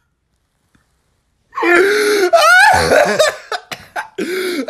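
Dead silence for about a second and a half, then a man laughing hard in loud bouts, his voice swooping up and down in pitch.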